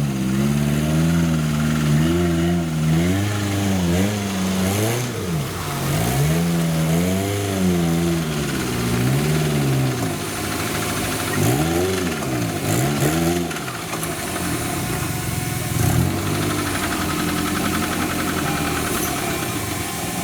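Engine of a Suzuki Jimny-based off-road trial machine, revved up and down in repeated short blips, with steadier low running in between and toward the end.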